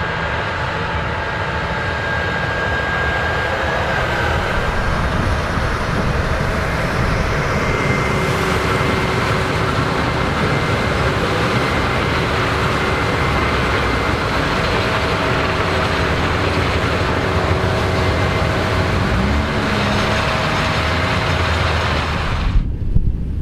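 Large farm tractor's diesel engine running steadily under load in the field, with faint steady whines over the drone. Near the end the sound suddenly turns to a lower, gusty rumble.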